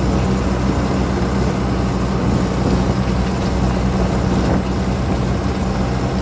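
John Deere 6420L tractor's diesel engine running at a steady speed while the tractor drives across a field.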